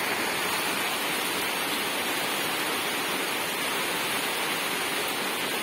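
A steady, even rushing hiss with no distinct events and no change in level.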